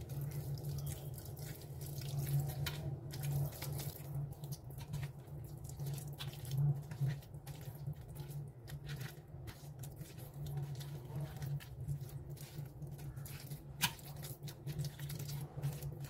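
A hand rubbing an oily spice marinade onto raw boal catfish steaks in a steel pan: soft wet squishing with small irregular clicks and taps against the pan. A steady low hum runs underneath.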